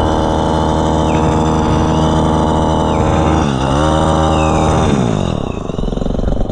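Pole hedge trimmer's small engine running steadily at speed. The pitch dips briefly about halfway through and then falls.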